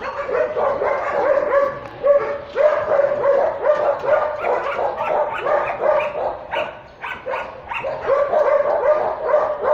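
Several shelter dogs barking without a break, their short barks overlapping, with some higher yips among them.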